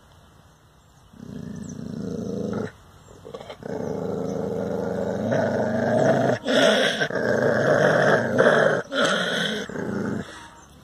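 Dog growling in long, sustained stretches: one of about a second and a half, then after a short pause a longer one of about six seconds, broken twice by brief catches of breath.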